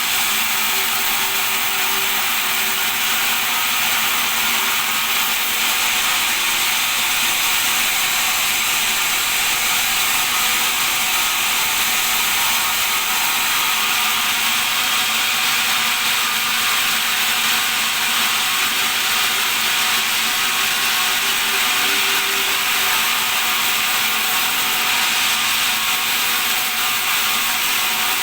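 Bandsaw running steadily, a continuous high-pitched hiss that holds an even level throughout.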